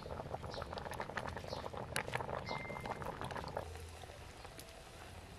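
A pot cooking over a wood fire, with many small crackles and pops that thin out after about three and a half seconds.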